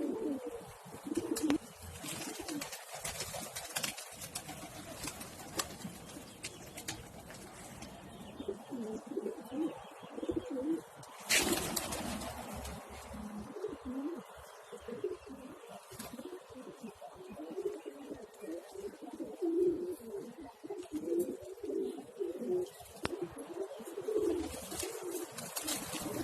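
Pigeons cooing over and over in low, rolling calls, with scattered sharp clicks and one louder knock about eleven seconds in.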